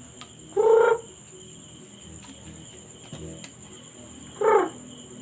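A person's voice making two short, pitched, silly noises: one about half a second in and another near the end.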